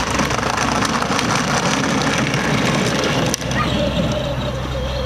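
Battery-powered ride-on toy ATV driving, its electric motor and gearbox running over a steady noisy rush. About three and a half seconds in there is a click, and after it a wavering whine.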